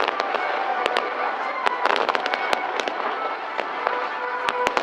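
Fireworks going off in rapid succession, many sharp cracks and pops, with music playing alongside.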